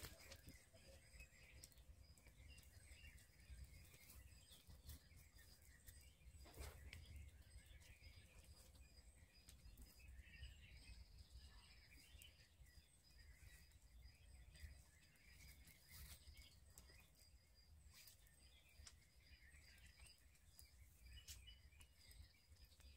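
Quiet woodland ambience: faint birdsong from several birds, over a low wind rumble, with scattered light ticks and one louder tick about six seconds in.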